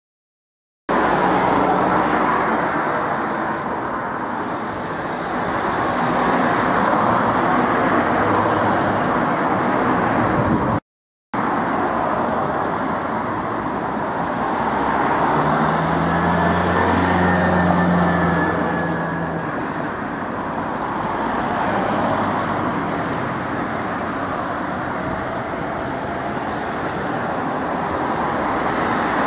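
Steady city road traffic, cars passing so the sound swells and fades every few seconds. About halfway through, a large vehicle's engine hums low for a few seconds as it goes by. The sound cuts out for half a second about eleven seconds in.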